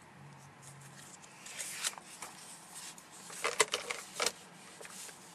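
Sheets of paper being handled and swapped, with short rustles and crackles about one and a half seconds in and a denser burst of them between about three and a half and four and a half seconds in.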